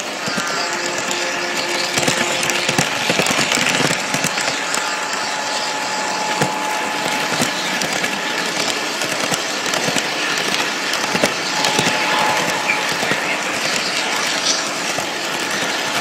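Lionel toy train rolling along its track, heard up close from a phone riding on the train: a steady rattle and rapid clicking of the wheels on the metal rails.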